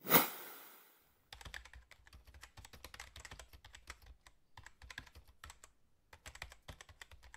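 Computer-keyboard typing sound effect: rapid, irregular key clicks with a couple of short pauses. At the start, a sudden noisy burst fades away over about a second.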